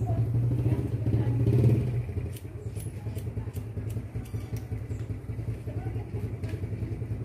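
Steady low engine hum, louder for the first two seconds, with a quick run of light snips from hairdressing scissors cutting hair between about two and five seconds in.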